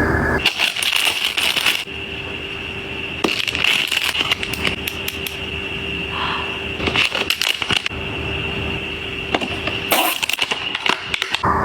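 Cosmetics packaging being handled during an unboxing: bursts of crackling, rustling and small clicks that come in clusters every couple of seconds, over a faint steady tone.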